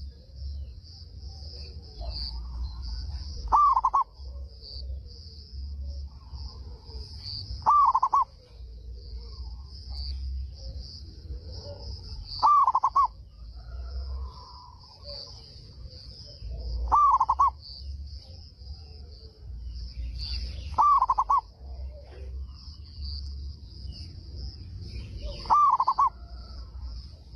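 Zebra dove (perkutut) singing: a short, loud cooing phrase about every four to five seconds, six in all, over a steady high hiss.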